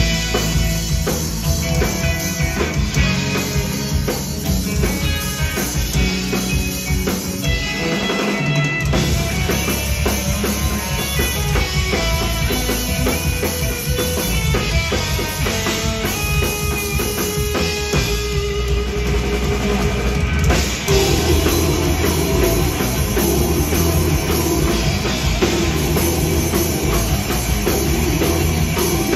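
Live death metal band playing: distorted electric guitars, bass guitar and a pounding drum kit, heard from the audience. The bass and drums drop out briefly about eight seconds in, then come back in.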